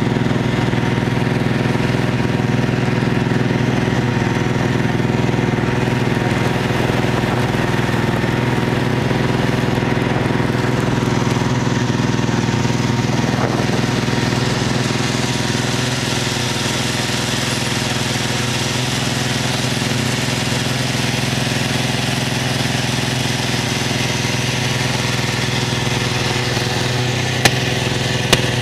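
Snowmobile engine running at a steady speed over snow and ice, with two sharp knocks near the end.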